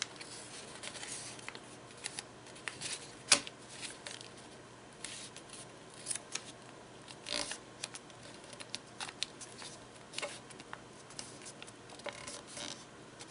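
A sheet of origami paper being folded and creased by hand: scattered crisp rustles and rubs as fingers press and slide along the folds, with one sharper crackle about three seconds in.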